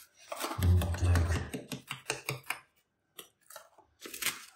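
Narrow metal putty knife being worked and wiggled in wet clay mortar, pressing it into a gap at the base of a wall: a run of short scrapes and clicks, the sharpest near the end.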